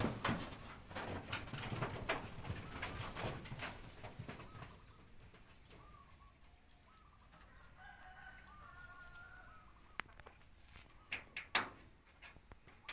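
A flurry of rustling and clicking knocks for the first few seconds, then a rooster crowing faintly in the background about eight seconds in, and a few sharp knocks near the end.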